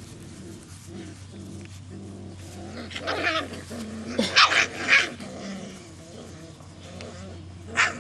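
Standard poodle puppies growling as they play-fight, with several short sharp yaps about three to five seconds in and another near the end.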